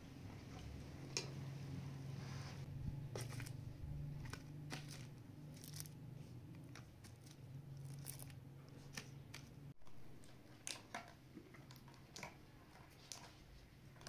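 Scissors snipping through sheets of dried fruit leather, in irregular short clicks and snips, with light taps as the pieces are handled on a metal tray.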